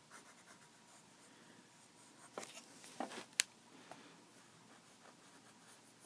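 Pencil drawing on lined notebook paper: faint scratchy strokes, with a few louder strokes around the middle, one a sharp click.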